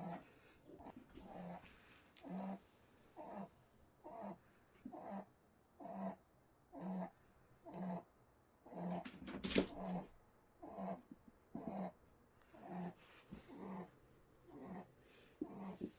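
A sleeping pet snoring in short, regular snores, a little faster than one a second, each a low buzz. One louder, rougher snore comes about halfway through.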